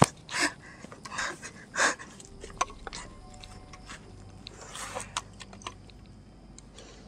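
Hurried footsteps crunching on dry pine needles and leaf litter, a few irregular steps in the first two seconds and another near the end, with small clicks from the camera being handled.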